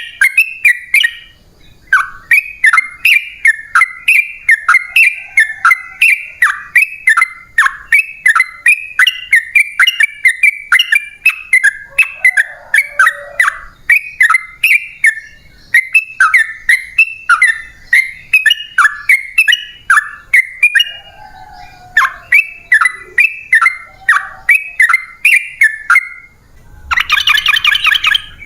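Yellow-vented bulbul (trucukan) singing a long, rapid run of loud bubbling chirps, about three or four notes a second, with a few short breaks. A harsh buzzy chatter comes near the end.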